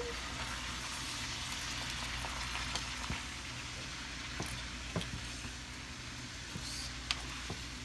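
Shredded cabbage sizzling and bubbling in a pan with a little water, with a few sharp clicks scattered through.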